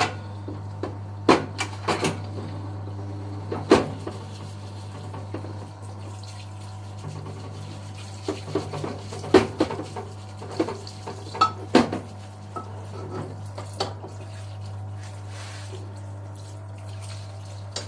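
Washing a Suzuki Landy front differential housing and its parts: water splashing and sloshing, with sharp metal clinks and knocks as parts are handled, over a steady low hum.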